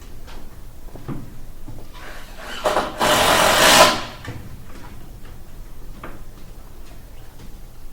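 Renovation work noises: scattered light knocks and tool clatter, with one loud, noisy burst of tool noise lasting about a second, a little under three seconds in.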